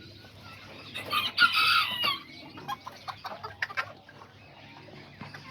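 A bantam rooster crows once, about a second in, a short crow of about a second. Hens cluck briefly and quietly after it.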